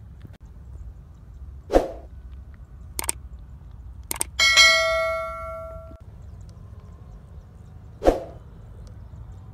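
Subscribe-button animation sound effects: a short thump, two sharp clicks, then a notification bell's ding that rings out for about a second and a half, and another thump near the end.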